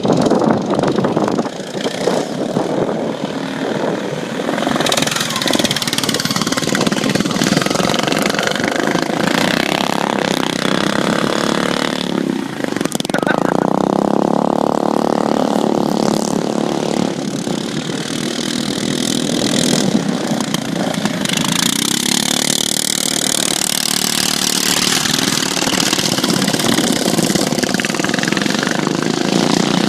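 Engines of several stock-class racing riding lawn mowers running hard, their pitch rising and falling as they rev through the corners, with long stretches of rushing noise over them.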